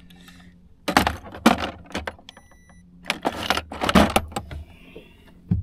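Handling a just-caught largemouth bass: two bursts of rattling and thrashing as the fish shakes and the hook and lure are worked free, then a single thud near the end.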